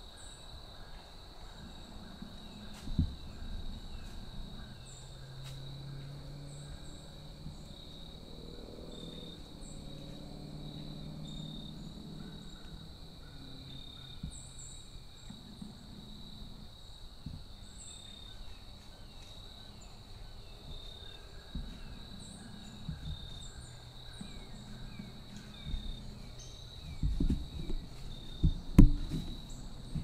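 Steady high drone of crickets and other insects in the woods, with small chirps above it. Near the end come a few sharp knocks and rustles as the camera is handled and swung around.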